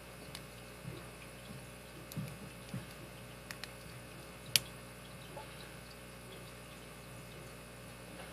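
Small metallic clicks and soft knocks of a lock pick and tension wrench working the pin tumblers of a vintage Master Lock 15FF five-pin padlock, with one sharp click about four and a half seconds in.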